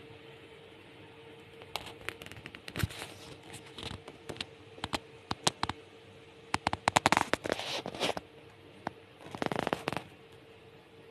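Handling noise: irregular clicks, taps and rustles as a leather handbag is held by its strap and moved about, loudest about seven seconds in and stopping about ten seconds in.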